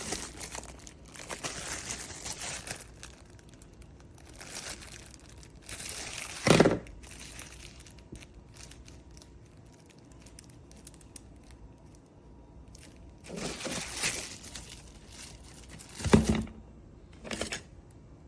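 Rustling, crinkling handling noise in several bursts, with two sharp knocks, one about six and a half seconds in and a louder one about sixteen seconds in.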